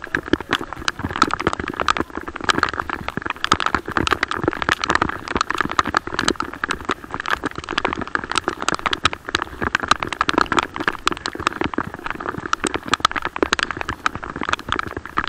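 Rain, with drops striking close to the microphone as a dense, irregular run of taps and crackles.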